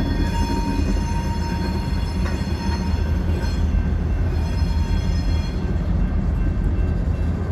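EMD GP-series ('Geep') diesel locomotive passing at close range with a steady low engine rumble, then covered hopper cars rolling by with wheel-on-rail rumble. A thin high-pitched squeal fades in and out near the start and again around the middle.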